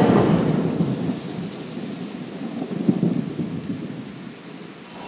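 Thunder sound effect rumbling, loudest at the start, fading, then swelling again about three seconds in before dying away.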